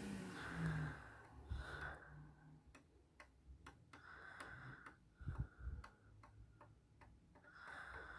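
Faint, irregular light ticks, a few a second, as tweezer tips tap along the pins of a PS5's re-soldered HDMI port while it is checked for solid connections.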